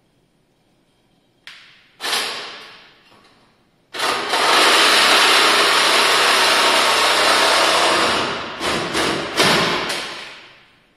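Handheld power tool cutting off fender screws: a short burst about two seconds in that winds down, then a steady run of about four seconds, then a few short bursts near the end, each winding down after the trigger is released.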